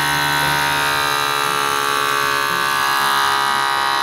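Small electric air pump of an Omron HEM-7111 blood pressure monitor running steadily with a loud buzzing whine as it inflates the arm cuff, the pressure climbing past 130 mmHg; its pitch drifts slightly as the pressure builds.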